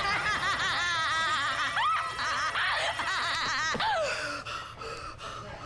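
A young woman giggling uncontrollably, high-pitched and rapid, as a tickle coat tickles her. It dies down about four seconds in.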